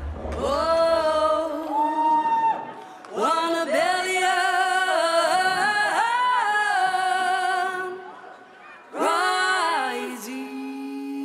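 A woman's voice singing long, held phrases in a song with sparse backing and no beat: three phrases with short pauses between them.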